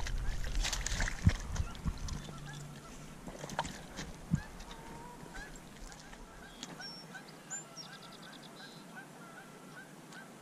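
Knocks and rustling as a freshly landed northern pike is handled on a muddy riverbank, loudest in the first few seconds. Then geese honk in the distance, a run of short calls about twice a second.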